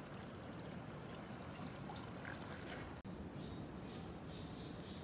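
Faint sound of water lapping and trickling against a sailboat's hull, broken by a sudden cut about three seconds in. A thin, high, steady tone comes in after the cut.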